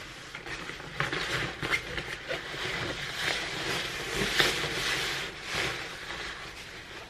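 Rustling of a padded jacket and backpack as they are put on and adjusted, an uneven scratchy rustle with a few sharper ticks, the loudest about four seconds in.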